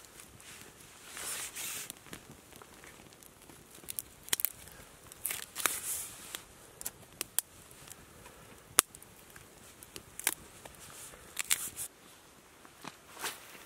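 Small wood campfire of dry twigs and split kindling crackling, with sharp pops scattered throughout.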